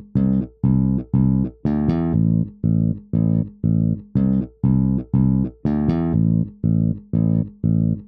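Music: a riff of short plucked string notes repeated about twice a second, each cut off sharply with a brief gap before the next.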